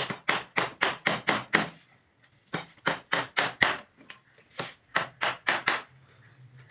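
Hand tool working wood in quick runs of sharp strokes, about four a second, in three bursts with short pauses between.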